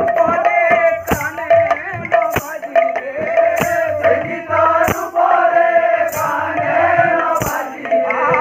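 Kirtan: a group of mostly male voices singing a devotional chant in chorus over a held tone, with a regular percussion stroke about every second and a quarter.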